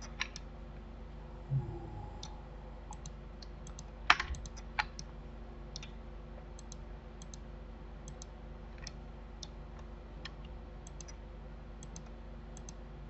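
Scattered clicks of a computer mouse and keyboard, a few louder ones about four to five seconds in, over a steady low hum.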